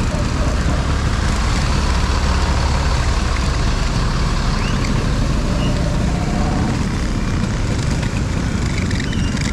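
Motor vehicle engines running in a slow queue of traffic: a steady low engine rumble with traffic noise around it.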